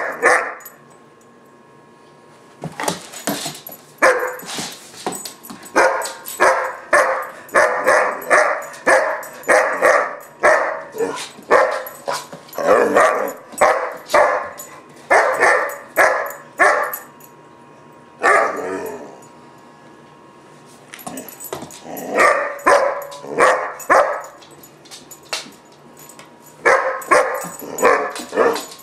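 German shepherd puppy, about 4-5 months old, in a barking fit: a temper tantrum of sharp barks in runs of about two a second, broken by pauses of a few seconds.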